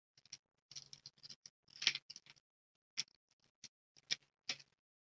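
Parts of a CF20 paintball magazine being handled and fitted together by hand: a run of small, irregular clicks, scrapes and rattles, the loudest about two seconds in.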